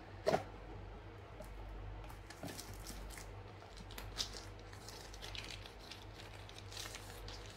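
Smartphone packaging handled by hand. A single soft knock comes first as a box is set down, then scattered light crinkling and rustling of the phone's plastic wrapping sheet.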